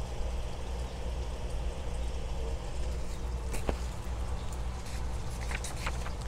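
Steady low background rumble with a faint hiss, and a single sharp click about three and a half seconds in.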